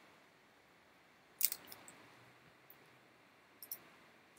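Computer mouse button clicks. A sharp double click comes about a third of the way in, followed by a few faint clicks, then another quick pair near the end, with near silence between them.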